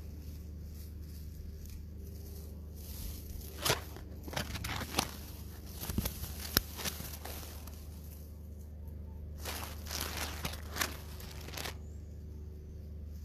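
Close rustling and crackling of grass and fur against the microphone as a hand strokes a cat lying in the grass. It comes in irregular bursts with a few sharp clicks, busiest about four to seven seconds in and again around ten to eleven seconds, over a steady low hum.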